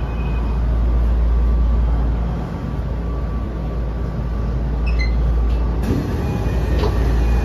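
Tokyo Metro 02 series subway train running, heard from inside the passenger car: a steady heavy rumble of wheels on rail with faint steady whining tones. About five seconds in come a few short high tones stepping downward.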